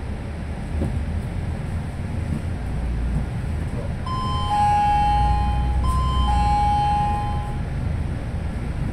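A two-tone ding-dong chime, a higher note dropping to a lower held one, sounds twice in a row inside a moving bus, over the bus's steady low engine and road rumble.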